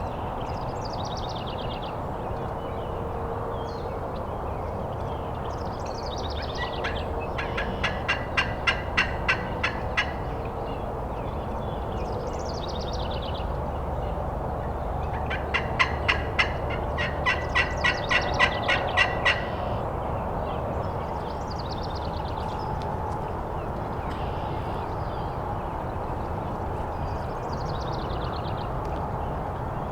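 Two runs of turkey yelps, evenly spaced notes at about two to three a second: one of about two seconds about a quarter of the way in, and a longer one of about four seconds near the middle.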